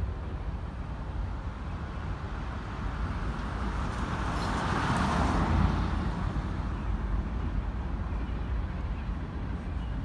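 A road vehicle passing by, swelling to its loudest about five seconds in and then fading, over a steady low rumble.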